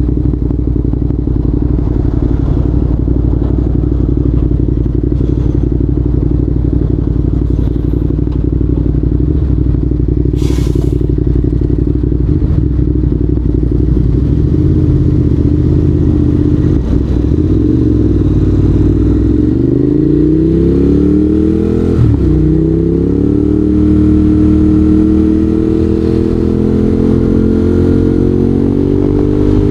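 Ducati Monster 821's L-twin engine running steadily for the first half, then climbing in pitch in stages as the revs rise, with a sharp click about two-thirds of the way in. A brief rush of noise comes at about a third of the way through.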